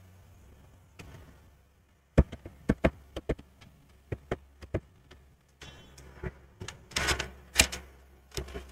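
Computer keyboard keys clicking in quick, irregular runs as a number is typed, starting about two seconds in.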